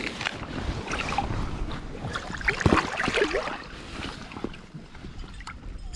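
Shallow rock-pool water sloshing and splashing as a hand moves through it among the stones, with irregular small splashes and knocks.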